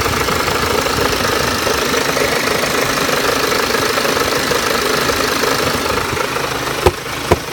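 BMW X1 23d's N47S two-litre four-cylinder diesel running steadily at low revs with the odd running note its owner cannot place. Two sharp clicks come near the end, under half a second apart.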